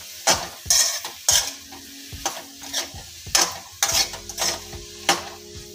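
A steel spoon stirring and scraping chopped ridge gourd, tomato and onion around a non-stick kadai as they fry, with about nine sharp scrapes and knocks against the pan.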